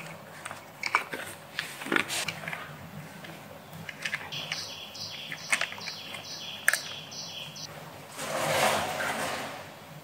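Sharp plastic clicks and knocks from a Dyson Digital Slim cleaner head being taken apart by hand to free its brush roll. Midway there is a quick run of about seven high chirps over three seconds, and near the end a rough noise lasting nearly two seconds, which is the loudest sound.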